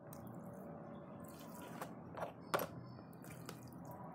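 Wet, wire-wrapped axe head being handled on a plastic lid and lifted by its wire: a few small clicks and taps, the sharpest about two and a half seconds in, over a steady low background noise.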